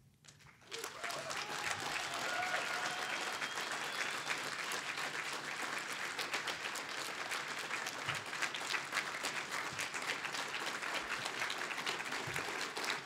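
Audience applauding: a dense, steady clatter of many hands clapping, starting about a second in after a moment of silence, with a few faint voices calling out in the crowd.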